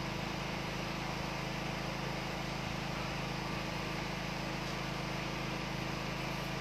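Steady background hum with an even hiss underneath, unchanging throughout, with no distinct knocks or clicks standing out.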